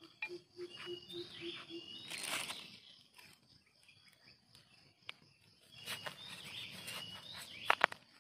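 Birds chirping with short, repeated high calls, and a row of about seven low hoots in the first two seconds. Rustling and a few sharp snaps of a hand picking termite mushrooms from the soil, with a brief rustle a little past two seconds in and the loudest snaps near the end.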